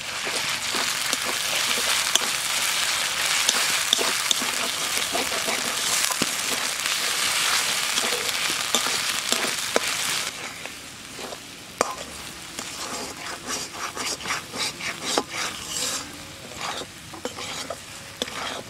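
Spice pastes frying in hot mustard oil in a metal kadai, stirred with a wooden spatula: the masala being fried down before the meat goes in. A loud, even sizzle for about the first ten seconds, then a quieter sizzle with repeated scraping strokes of the spatula against the pan.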